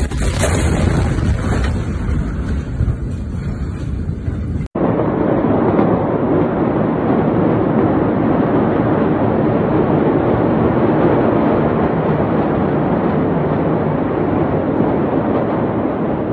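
Steady rushing wind noise on a phone microphone, with no distinct events, broken by a sudden cut about five seconds in.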